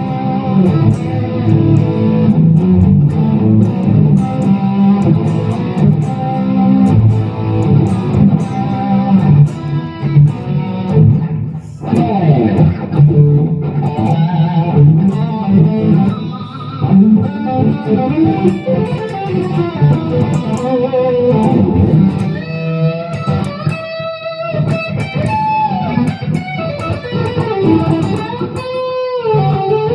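Epiphone Les Paul Custom electric guitar with Gibson 490 humbucking pickups, played amplified: chords and riffs, with string bends near the end.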